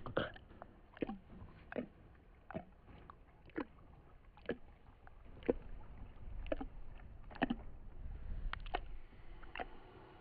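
Eerie sound-design ambience: short sharp knocking sounds at uneven intervals, roughly one a second, some sliding down in pitch, over a faint low hum.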